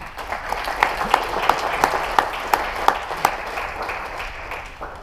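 Audience applauding at the end of a talk, with one clapper standing out at about three claps a second; the applause dies away near the end.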